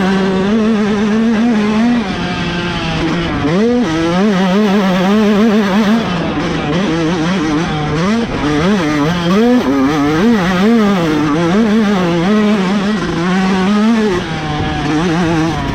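Yamaha YZ125X's 125 cc two-stroke single-cylinder engine under way, its revs rising and falling constantly with quick throttle changes.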